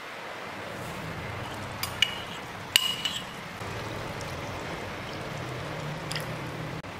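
Coconut milk and milk being poured into a pan of boiling broth: a steady liquid sound, broken by sharp clinks about two and three seconds in, the loudest ringing briefly, and a smaller click near the end.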